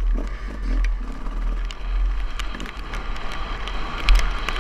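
Husqvarna dirt bike riding fast on a dirt trail, heard from the rider's helmet: a steady engine note under heavy wind buffeting on the microphone, with scattered ticks and a knock about four seconds in.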